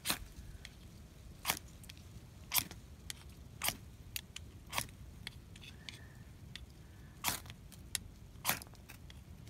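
Ferro rod being struck with a steel striker, about seven short, sharp scrapes roughly a second apart with a pause in the middle, throwing sparks onto a hand-sanitizer wipe to light it.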